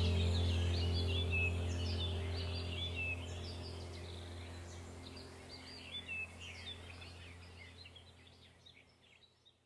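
Birds chirping and twittering in quick, overlapping short calls, over a low held background music chord that slowly fades out.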